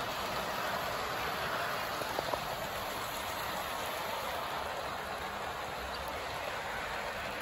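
Model train rolling along its track: a steady whirring rush of wheels on rail and motor, with a couple of faint clicks about two seconds in.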